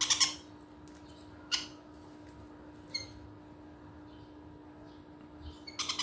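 Green-cheeked conures giving short, harsh squawks: a loud cluster at the start, single calls about a second and a half in and near the middle, and another cluster at the end.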